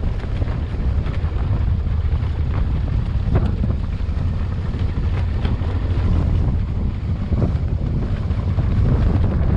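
Steady wind noise on the camera microphone while riding a Honda Transalp XL600V motorcycle, its V-twin engine running underneath, with a few sharp ticks.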